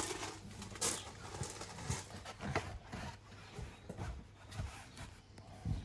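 Irregular soft knocks and rustling as a man moves on his knees across the carpeted van floor and handles the seat cushions, the loudest knock about a second in.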